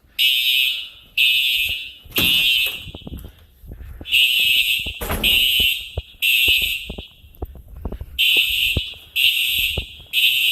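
Building fire alarm horns sounding the temporal-three evacuation pattern: three loud high-pitched blasts, a pause, then three more, repeating three times. Scattered knocks and shuffling sounds underneath.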